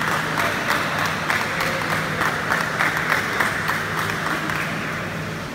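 Spectators applauding, a dense patter of claps that thins out and fades near the end.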